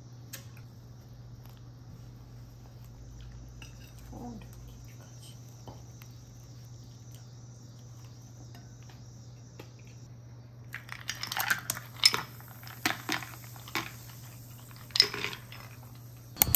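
Eating sounds at a table: a faint steady hum, then about eleven seconds in a run of sharp crunches and clicks, like crisp seaweed being bitten and cutlery touching a plate.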